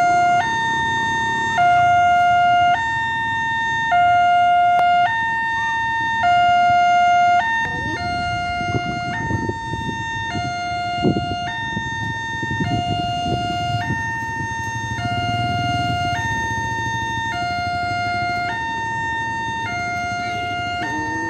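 Railway level-crossing warning alarm sounding: an electronic two-tone signal swapping between a lower and a higher tone about once a second, the warning that a train is coming. About a third of the way in, a low rumbling noise rises beneath it.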